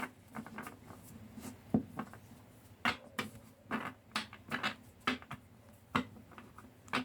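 Tarot cards being handled: a series of soft, irregular taps and clicks as the cards are gathered, tapped and shuffled by hand.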